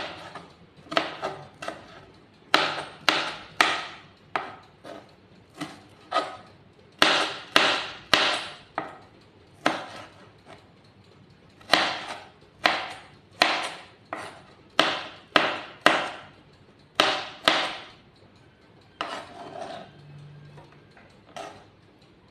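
Kitchen knife chopping vegetables on a plastic cutting board: a long run of sharp knocks, about one or two a second, with a few short pauses and softer, scattered knocks near the end.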